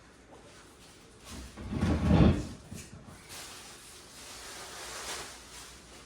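Packaging of a boxed water heater being handled: a heavy bump and scrape about two seconds in, then a few seconds of scraping and rustling of box and styrofoam.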